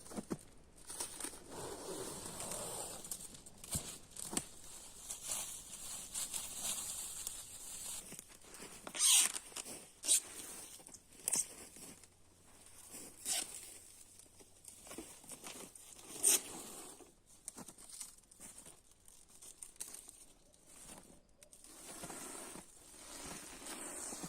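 Plastic stretch wrap film being pulled off the roll and wound around a shelter frame, crinkling, with several short, sharp, louder rips as it stretches and tears.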